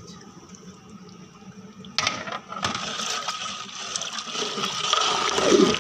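Beef pieces cooking in oil in a large aluminium pot over a wood fire, stirred with a long ladle. A steady sizzling hiss starts suddenly about two seconds in and grows louder towards the end.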